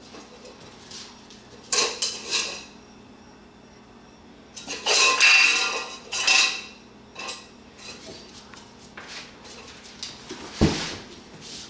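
Scuffling and clattering from a Rottweiler playing with a kitten on a hard floor, in several short bursts, the longest about five seconds in.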